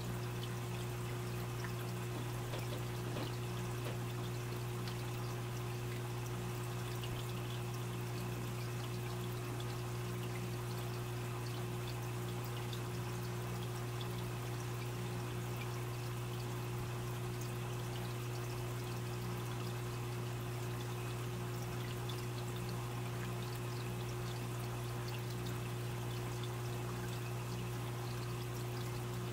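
Aquarium filter running: water steadily trickling and splashing into the tank, over a constant low hum.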